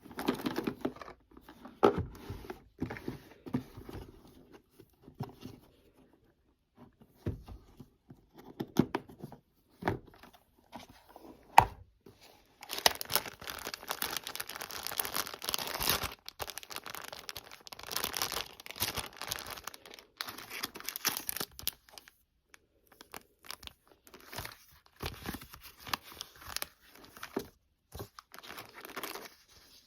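Toy packaging being opened by hand: scattered taps and handling clicks, then, from about twelve seconds in, some ten seconds of continuous tearing and crinkling of the wrapping, then more intermittent crinkling.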